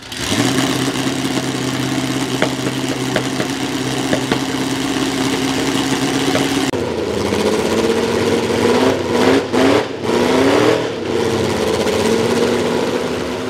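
An H-configuration racing engine running at a steady, high engine speed. About halfway through, the pitch drops, then the revs are blipped up several times in quick succession before settling steady again.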